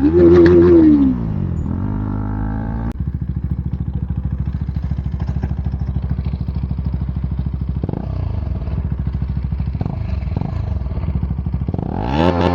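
KTM Duke 250 single-cylinder engine with its exhaust silencer removed: a quick rev that rises and falls in the first second, then a steady pulsing idle, and another rev starting near the end.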